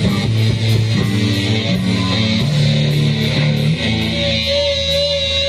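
Live band playing loud, heavy music: a distorted electric guitar riff of low held notes, with a steady high whine coming in about four seconds in.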